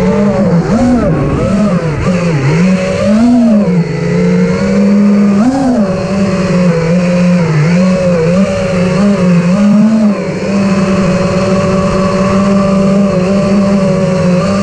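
Armattan Rooster FPV quadcopter's Brotherhobby Returner R6 brushless motors and three-blade HQ 5.1-inch props whining in flight. The pitch dips and swoops with the throttle over the first six seconds or so, then holds fairly steady.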